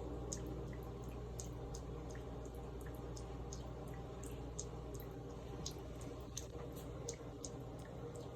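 A running tap with water trickling and dripping, many small irregular splashes, a few a second, over a steady rush.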